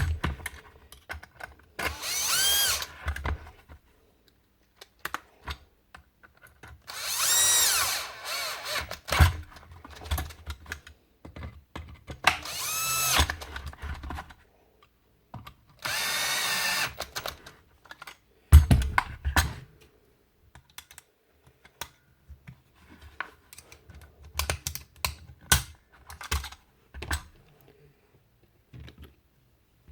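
Cordless drill-driver running in four short bursts of about a second each, its whine rising and falling each time, among scattered clicks and knocks of tool parts being handled and one heavier knock about two-thirds of the way through.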